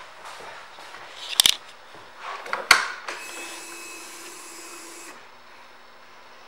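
Motorcycle ignition switched on with a sharp click, followed by a steady electric whine of about two seconds that stops abruptly: the fuel pump priming. A brief loud handling noise comes just before.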